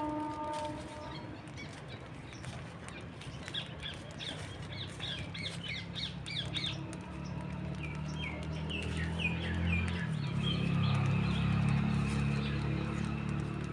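Small birds chirping and calling in quick, repeated short notes, with a low rumble growing louder in the second half.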